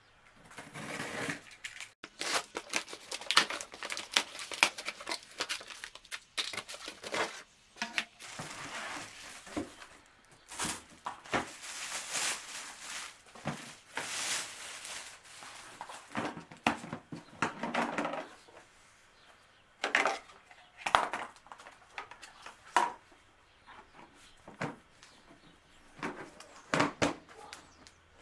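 Cardboard box and plastic packaging being opened and handled: irregular rustling, crinkling and tearing, with a few sharp knocks.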